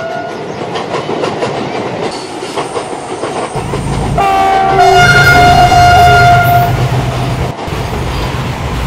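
A WDG4G diesel locomotive hauling a container freight train approaches and passes close by, growing louder with a deep engine rumble. About four seconds in it sounds its multi-tone horn for roughly two and a half seconds. The container wagons then rattle past with a clickety-clack of wheels over the rail joints.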